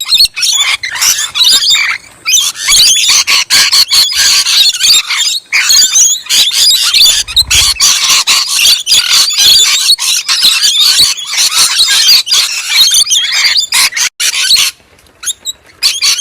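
Small animals squealing and chirping rapidly and almost without pause, high-pitched, dying away shortly before the end.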